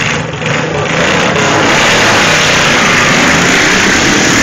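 Racing lawn mower engines pulling away from the line and running flat out. Loud and building over the first second, then holding steady.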